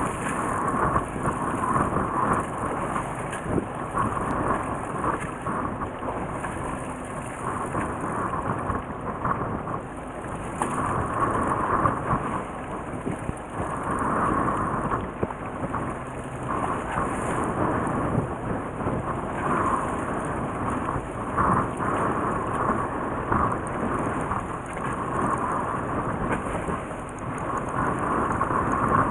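Loud rushing, rumbling noise aboard a fishing boat, swelling and easing every few seconds: wind on the microphone and water.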